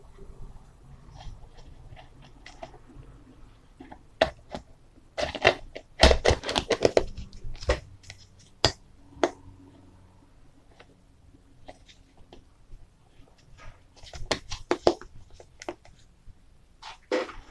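Snap-on plastic lid being pressed down around the rim of a plastic tub by hand: bursts of crackling and clicking, loudest about six seconds in and again near the end.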